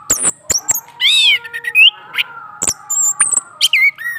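Male orange-headed thrush singing, stirred by a female nearby: a fast, varied run of sharp clicks, short chirps and whistled notes that glide up and down.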